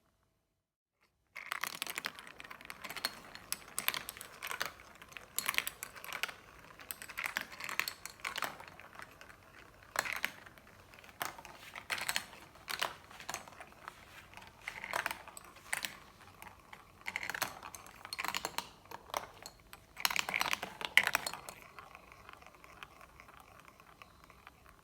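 Marbles rolling and clattering down a marble-run track: a quick stream of clicks and knocks over a rolling rattle. It starts suddenly after a second of silence and thins out near the end.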